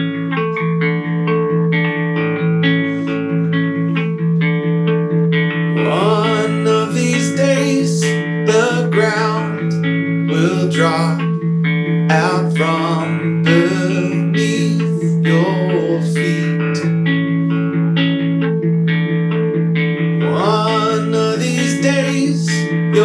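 A rock song with electric guitar and bass played at full volume through an LG RK8 Bluetooth speaker, heard in the room. A steady repeating low riff runs throughout, and busier high guitar lines come in about six seconds in and again near the end.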